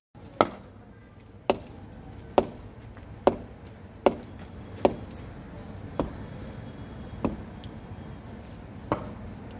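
A cricket bat knocking: nine sharp wooden knocks, spaced about a second apart.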